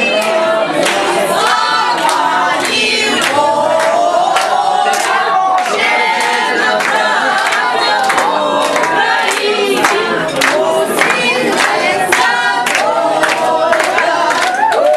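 A small group of men and women singing a song together, loudly, with many sharp hand claps scattered through it.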